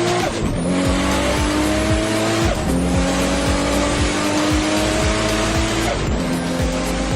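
A turbocharged 2JZ-GE inline-six (NA-T) accelerating hard at full throttle. Its note climbs steadily through each gear and drops at three upshifts: just as it starts, about two and a half seconds in, and about six seconds in.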